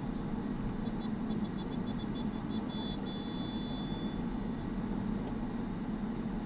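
Steady road and engine noise heard from inside a car moving in city traffic. Between about one and four and a half seconds in, a thin high-pitched tone sounds, first as a run of quick pips and then held for about two seconds.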